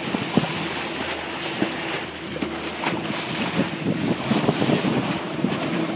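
A boat under way at sea: wind buffeting the microphone and water splashing against the hull, with scattered short knocks and splashes over a steady hum.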